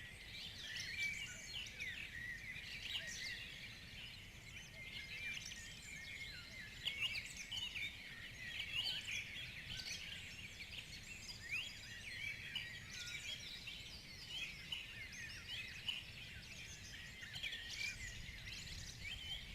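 Morning chorus of many forest birds singing at once, dense overlapping chirps and short whistles, over a low steady rumble.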